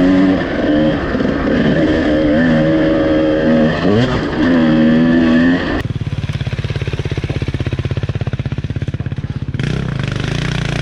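Honda CR250R single-cylinder two-stroke dirt bike engine heard from onboard, revving hard, its pitch climbing and dropping sharply several times with throttle and gear changes. About halfway through it changes to a dirt bike engine held at low revs in a steady, even putter down a steep descent, picking up again near the end.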